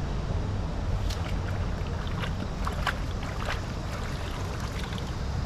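Small splashes and trickling of river water as a fish is rinsed by hand, coming in a run of short crackles in the middle of the stretch. Under it is a steady low rumble of wind on the microphone.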